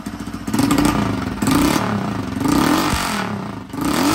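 Honda CG 160 single-cylinder motorcycle engine blipped up from idle three times through a Toruna exhaust whose muffler has been opened up with a length of iron tube pushed inside, leaving it sounding very loud.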